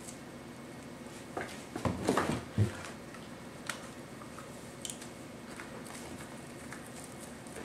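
Plastic spring clamps being handled and set onto a leather knife sheath. A burst of rustling and knocking comes about two seconds in, then a few light clicks, over a steady low hum.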